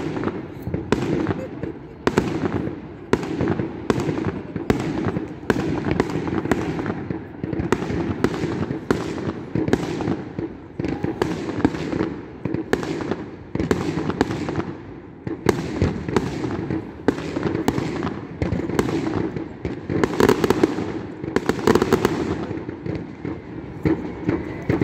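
Fireworks exploding in a rapid, irregular string of loud bangs, with a denser crackling flurry about twenty seconds in.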